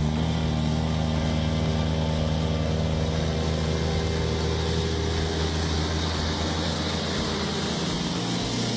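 A heavy vehicle or machine engine running steadily at an even speed, its hum holding the same pitch throughout.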